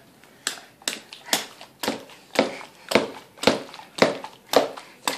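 A toddler laughing in short, breathy bursts, about two a second, repeated evenly.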